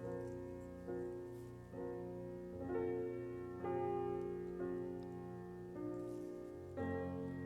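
Background piano music: soft, sustained chords, with a new chord struck about once a second.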